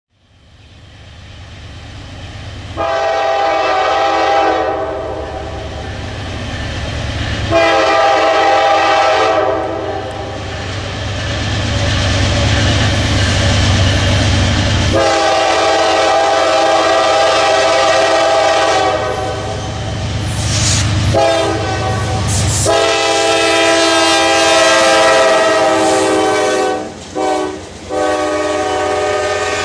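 Norfolk Southern GE C44-9W diesel locomotive approaching and passing, sounding its multi-note air horn in several loud blasts: long blasts, then a short one and a final long held blast, the long-long-short-long pattern of a grade-crossing signal. A low diesel engine rumble lies underneath. As the locomotive goes by, rail-train flatcars roll past with a clickety-clack of wheels.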